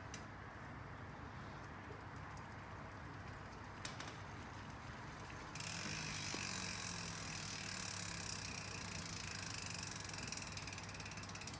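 DT Swiss 370 rear hub with a 54-tooth star ratchet freewheeling: after a single click near 4 s, a fast, dense ticking buzz starts about halfway in. It is fairly quiet, which the owner says could be down to the fresh grease inside.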